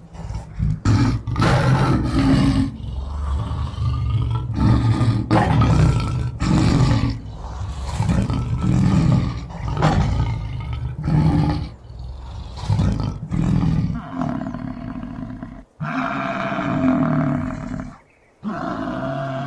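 Lion roaring in a series of short, deep grunting calls about a second apart. About thirteen seconds in this gives way to a bison bellowing in longer, low drawn-out calls, with two brief gaps between them.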